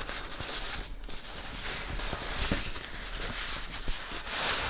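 Thin white protective wrapping bag rustling and crinkling steadily as hands unwrap a pair of over-ear headphones from it.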